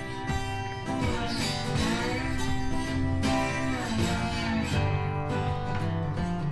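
Background music led by guitar, in a country style.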